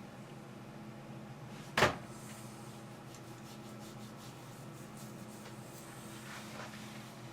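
A single sharp knock about two seconds in, over a faint steady hum, followed by faint scattered clicks and rustling.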